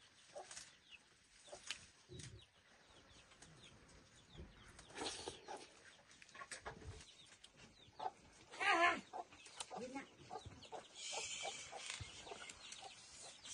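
Domestic chickens clucking, with short calls scattered through and one louder call about nine seconds in. A steady hiss comes in for the last couple of seconds.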